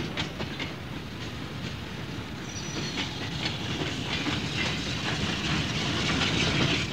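Small industrial saddle-tank steam locomotive rolling slowly past, its wheels clicking over the rail joints, growing louder as it draws close.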